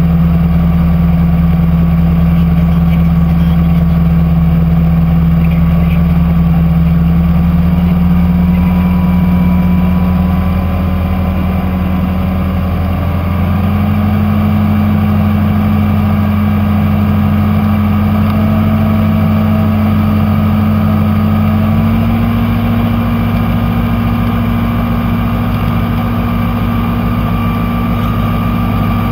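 Super Dimona motor glider's piston engine and propeller droning steadily, stepping up in pitch twice, about halfway through and again about two-thirds through, as the power is raised.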